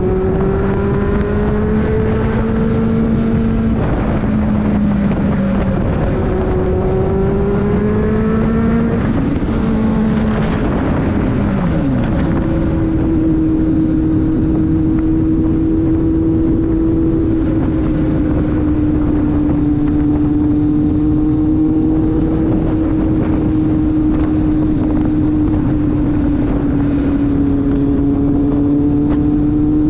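Kawasaki Z750 motorcycle engine on the move. It pulls up through the revs twice in the first ten seconds with a gear change between, eases off around ten to twelve seconds in, then holds a steady cruising pitch, with wind rushing over the microphone throughout.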